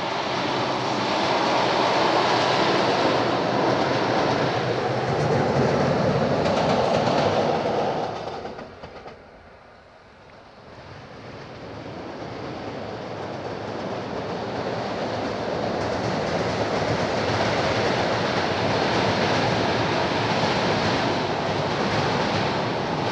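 A locomotive running across a steel truss railway bridge, its wheels rumbling and clattering on the rails; the sound drops away sharply about 8 seconds in. Then a passenger train of double-deck coaches approaches and crosses the bridge, its rumble and clatter building gradually to full loudness.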